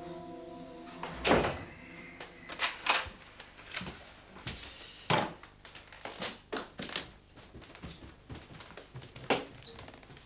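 A short musical chime fades out, then a door shuts with a loud thunk about a second in. A string of irregular knocking footsteps follows, about two a second, walking along an indoor hallway.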